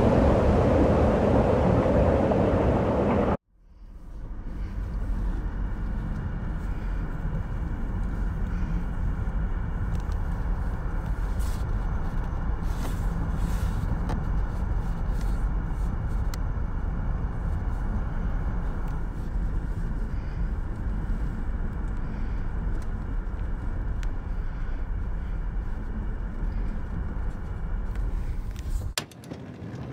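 A Cat backhoe loader runs as it pushes snow for about three seconds, then cuts off abruptly. After that comes the steady low rumble of a car's engine and tyres, heard from inside the cabin while driving on a packed-snow road.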